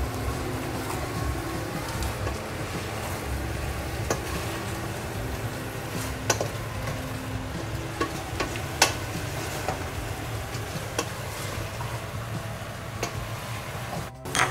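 Wooden spoon stirring mutton, onions and bay leaves that sizzle in a metal pot on the burner, with a few sharp knocks of the spoon against the pot, the loudest about six and nine seconds in.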